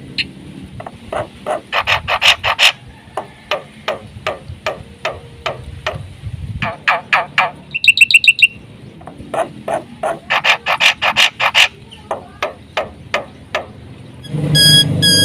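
Black-winged myna (jalak putih) singing a rapid, varied song of sharp chips and trills, packed with mimicked calls. About eight seconds in comes a fast buzzy trill, and near the end a louder, harsher call repeats about three times a second.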